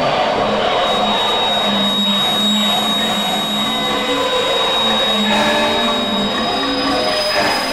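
Prepared electric guitars played through effects and amplifiers as a dense, steady noise drone, with a thin high steady tone above and low pitched drones shifting underneath.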